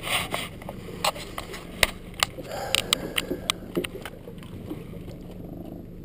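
Water lapping at a small boat's hull, with scattered sharp clicks and knocks, most of them in the first few seconds, over a steady low hum.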